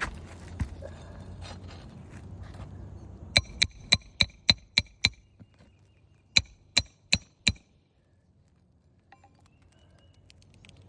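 Hammer driving roofing nails into a shingle: a run of seven sharp, ringing blows at about four a second, then after a short pause four more. Before the blows, soft rustling and scraping.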